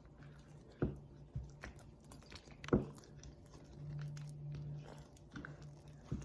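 Sticky homemade slime being kneaded and squeezed in the hands, giving small wet clicks and smacks, with two louder sharp smacks about a second in and near three seconds in.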